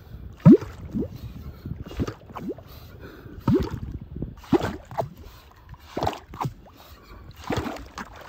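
Stainless yabby pump being worked in wet sand and shallow water: a series of about ten short sucking sounds, each dropping quickly in pitch, as the plunger draws up and blows out the sand cores. The loudest comes about half a second in.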